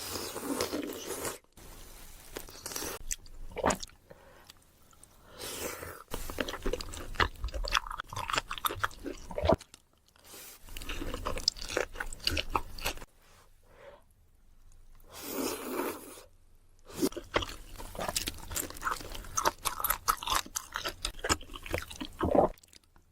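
Close-miked eating: crunchy bites and chewing of fried food in stretches of a few seconds, with short pauses between, alongside soft wet chewing of saucy rice cakes.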